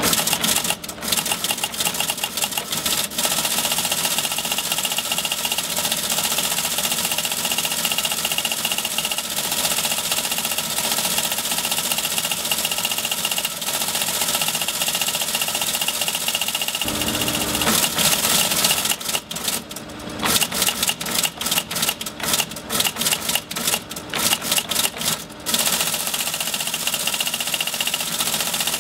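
Teletype Model 37 ASR teleprinter printing incoming text at 150 baud: a fast, continuous mechanical clatter from the print mechanism over the hum of the running machine. Between about 19 and 26 seconds in, the printing stops and restarts several times in short bursts.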